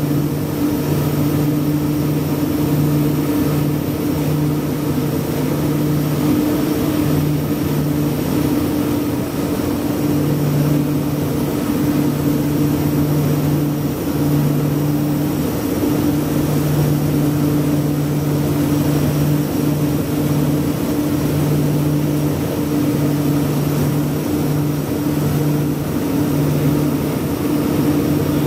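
LET L-410UVP-E's Walter M601E turboprop engines and propellers running at cruise, heard from inside the cabin. It is a steady propeller drone over rushing airflow, and its low hum swells and fades every second or so.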